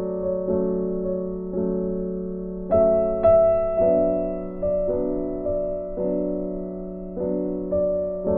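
Slow background piano music. Notes and chords are struck about every half second and left to fade.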